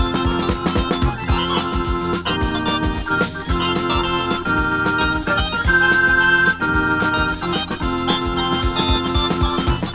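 Instrumental pop music led by a Yamaha electronic organ playing sustained chords over a steady drum beat.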